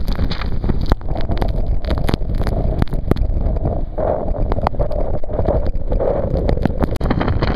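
Gale-force wind buffeting the microphone with a heavy low rumble and frequent crackling pops, over storm surf breaking against a seawall.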